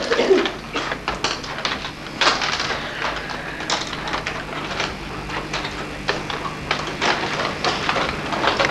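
Irregular clicking and rattling of small plastic pieces being handled and fitted together on desks.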